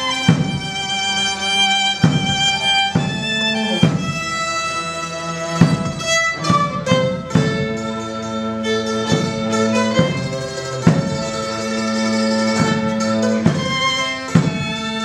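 Live acoustic ensemble of violin, cello and a large bass drum playing a traditional Andean tune: the bowed strings hold sustained melody notes over a steady drum beat of about one stroke a second.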